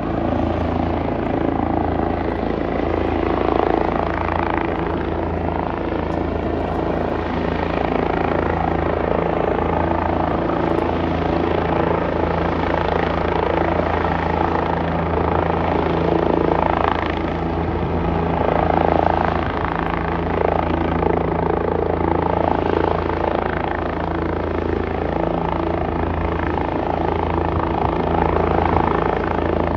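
Helicopter running steadily overhead: a loud, continuous low rotor beat with a rushing noise from the rotor and turbine above it.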